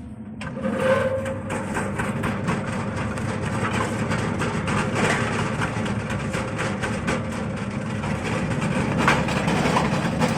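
Chip slicing machine running, getting louder about half a second in: a steady machine hum with a rapid clatter of slicing.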